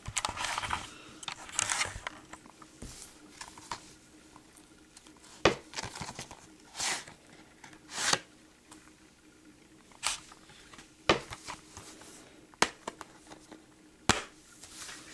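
Hands handling and opening a plastic Blu-ray case and its cardboard slipcover: intermittent rustling and scraping with several sharp plastic clicks.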